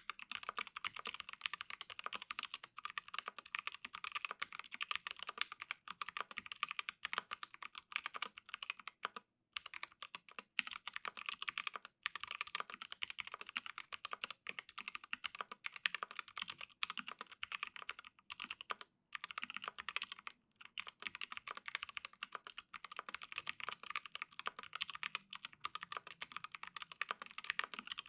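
Fast continuous typing on an Alice-layout mechanical keyboard with an acrylic case and acrylic half plate, lubed T1 switches and Cherry-profile PBT keycaps. The rapid key clicks pause briefly a few times.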